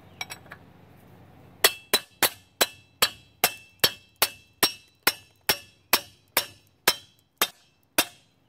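A quick run of about sixteen sharp, ringing metallic clinks that gradually slow down and grow fainter.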